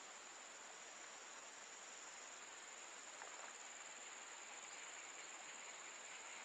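Steady, high-pitched drone of insects (crickets or cicadas) from the riverside forest, over a faint hiss.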